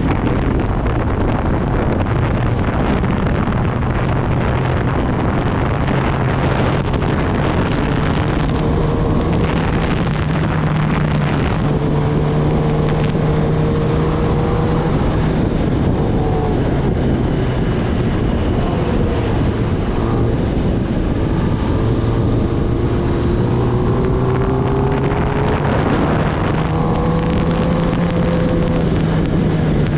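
Kawasaki Ninja ZX-10R's inline-four engine running under way, its note rising and dipping gently several times with the throttle, under heavy wind rush on the microphone.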